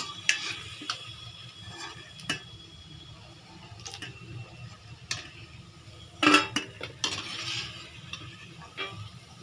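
Perforated metal slotted spoon scraping and knocking against a wok while fried jackfruit kofta are scooped out of hot oil, with faint sizzling from the oil. Scattered clinks throughout, the loudest knocks about six seconds in.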